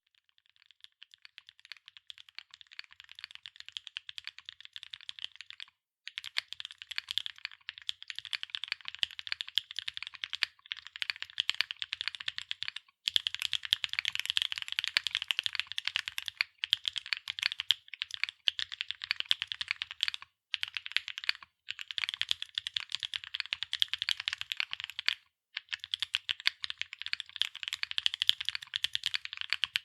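Fast, continuous typing on a CYCLE7 mechanical keyboard with MMD Vivian linear switches, an aluminium plate and PBT/ABS double-shot keycaps: a dense stream of keystroke clacks. It fades in over the first few seconds and breaks off for short pauses every few seconds.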